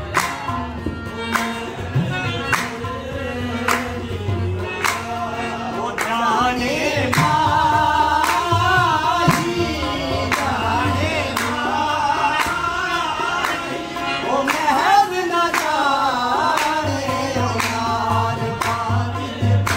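Qawwali music. Sustained instrumental tones carry a steady beat of sharp percussion strokes, and singing voices come in about six seconds in with long ornamented melodic lines.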